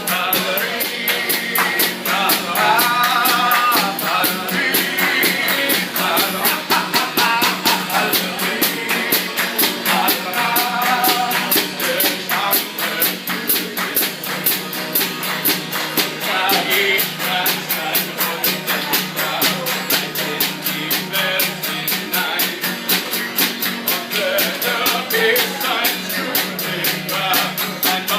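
A German-language song sung live with guitar accompaniment over a fast, steady beat.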